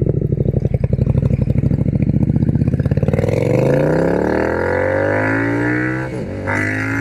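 Triumph Speed Twin 1200's parallel-twin engine through a Zard 2-into-1 exhaust, pulsing at low revs, then accelerating hard with the revs climbing steadily from about three seconds in. There is a brief drop at a gear change near six seconds.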